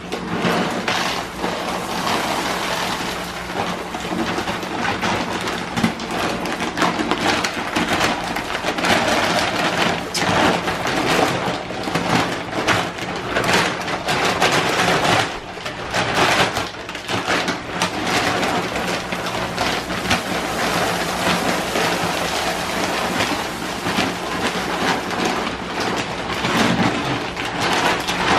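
Dry Purina Dog Chow kibble pouring from a large bag into a plastic storage bin: a continuous dense rattle of pellets hitting the bin and the growing pile, with a few brief lulls as the bag is tipped and repositioned.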